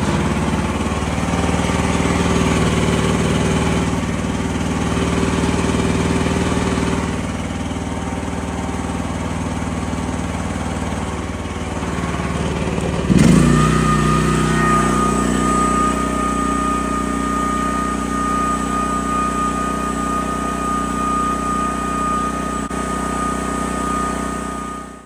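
Chinese QH12 mini excavator's engine running steadily just after being started. About halfway through the note changes with a sudden jump and a steady high whine joins it. The sound stops abruptly at the very end.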